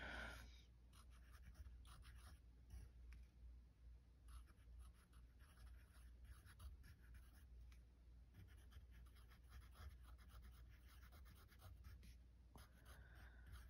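Faint handwriting: a writing tool scratching in short, irregular strokes as a line of text is written out.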